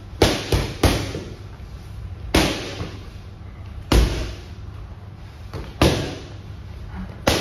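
Boxing gloves hitting focus mitts: a quick combination of three punches near the start, then four single punches about one and a half seconds apart.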